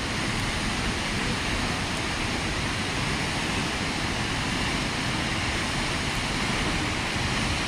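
Steady rush of the South Falls waterfall, an even noise of falling water with no breaks.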